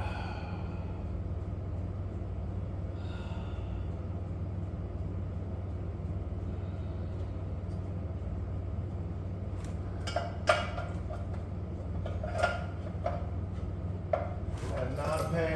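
Scattered metal clinks and knocks, several of them in the last five seconds, as a motorcycle's fuel tank and top end are handled by hand. A steady low hum runs underneath.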